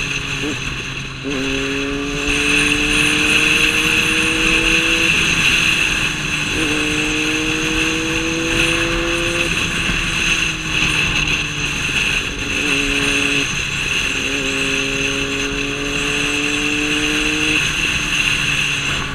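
Motorcycle engine accelerating in several pulls, its pitch climbing through each one and dropping back at each gear change or lift-off, over steady wind and road noise.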